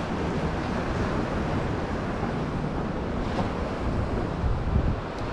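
Gusty wind buffeting the microphone over a steady rush of surf on a pebble beach.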